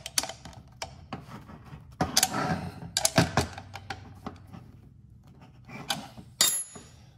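Irregular metal clinks and knocks as the steel mounting brackets and nuts on a brake booster are handled and checked for tightness. Several sharp taps have a brief ring, and a louder knock comes about six and a half seconds in.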